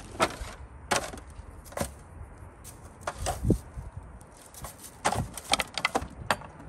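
Scattered sharp clicks and crinkles of a disposable aluminium foil pan being handled as a marinated rack of meat is lifted and set back down in it, irregularly spaced with a denser cluster late on.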